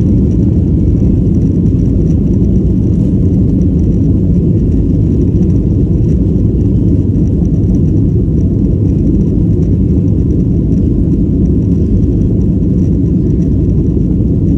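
Boeing 737 jet engines at takeoff thrust: a loud, steady low rumble that holds even throughout, with a faint thin high tone above it.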